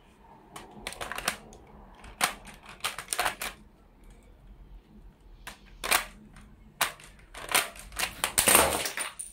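Plastic Lego bricks of a brick-built FAMAS rifle clicking and clacking as the gun is handled at the grip and magazine: scattered sharp clicks in small clusters, with the loudest, densest rattle near the end.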